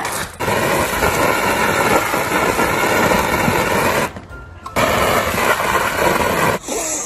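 A jet of water from a garden hose spraying hard against a glass door: a loud steady hiss and spatter that stops briefly about four seconds in, then sprays again and cuts off near the end.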